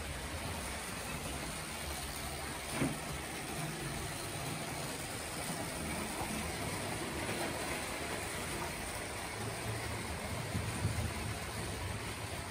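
Rivarossi model locomotive's electric motor humming steadily, with its wheels and the coaches' wheels running on the track as it hauls the rake, the usual Rivarossi running noise. One short click about three seconds in.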